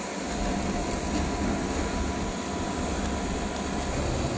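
Window air conditioner running with its compressor and fan motor, a steady hum and whir, while it is being charged with refrigerant gas.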